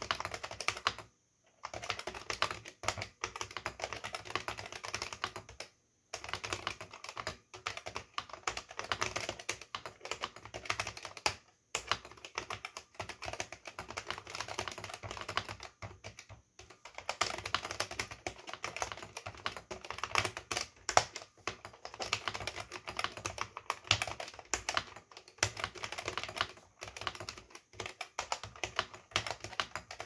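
Fast continuous typing on an Oki GE 5632H keyboard with Oki linear gourd-spring switches and PBT dye-sublimated keycaps: a dense stream of key strikes with a somewhat hollow sound, broken by a few brief pauses.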